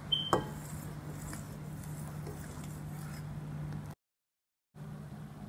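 China grass (agar-agar) and water boiling in a steel pot: faint bubbling over a steady low hum. A single metallic clink comes about a third of a second in. Near the end the sound drops out completely for under a second.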